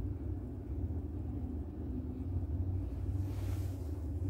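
Steady low background rumble with a faint hum above it, and a brief soft rustle a little after three seconds in.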